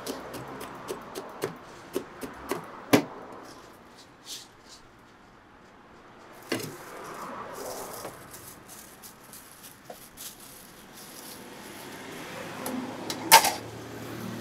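Food-preparation knocks and clinks: a quick run of sharp chopping knocks, about three a second, for the first three seconds. Then come scattered softer knocks and rustling, and one loud sharp clack near the end.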